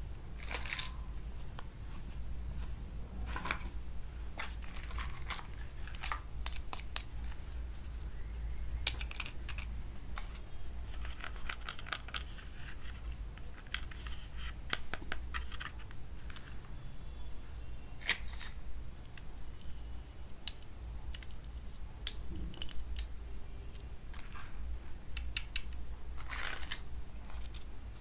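Small plastic toy food pieces being handled, set down and fitted together: scattered sharp clicks and taps with light rustling, over a steady low hum.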